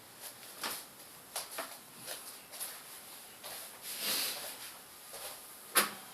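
Irregular light clicks, knocks and rustles of handling, with a louder rustle about four seconds in and a sharp click near the end.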